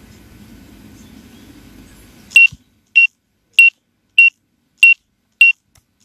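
Faint steady background noise that cuts off about two and a half seconds in, followed by six short, loud, high electronic beeps evenly spaced a little over half a second apart, all on one tone.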